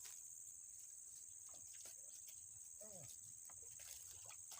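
Steady high-pitched insect chorus, a continuous shrill buzz, with a faint short wavering call about three seconds in.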